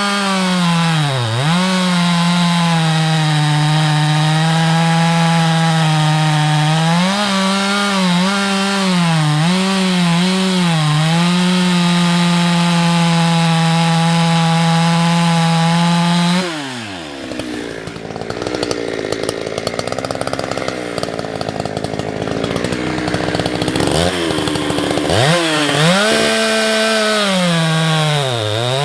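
Husqvarna 365 two-stroke chainsaw with a 24-inch bar held at high revs while cutting firewood, its pitch dipping and recovering a few times. About 16 seconds in, the revs fall sharply to idle. Near the end it is throttled back up to high revs.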